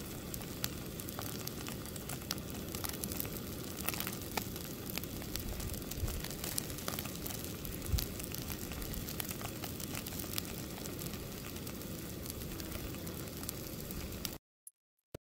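Fish frying in a skillet: steady sizzling of hot oil with scattered sharp pops and crackles, cutting off abruptly near the end.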